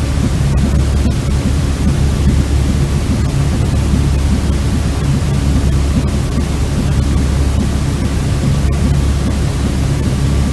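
Steady white noise for soothing a baby to sleep, heaviest in the low end, with a faint steady hum running through it.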